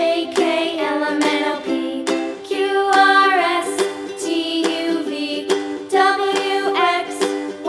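Background music: a bright children's tune with plucked ukulele-like strumming and a sung or synth melody line over a steady beat.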